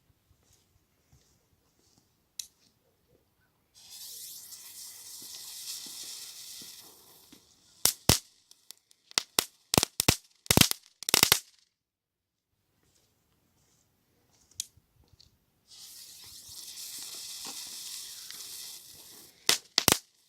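Weco Crackling Bird, a small category 1 youth firework, going off twice: each time a high hissing spray of sparks for about three and a half seconds, then a quick run of sharp crackling pops.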